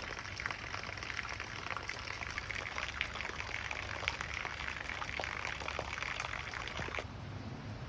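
Steady rain falling, with many small drops ticking on nearby surfaces. About seven seconds in the sound changes abruptly to a duller, quieter hiss.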